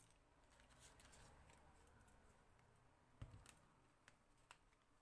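Near silence with faint clicks and rustles of paper pieces being handled on a cutting mat, and a soft bump a little past three seconds in.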